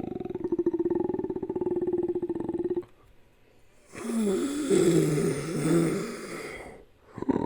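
Animal-like creature call sound effects. First a steady, rapidly pulsing growl held on one pitch, which stops suddenly. After a pause of about a second comes a louder, wavering, rough roar that rises and falls in pitch and fades out near the end.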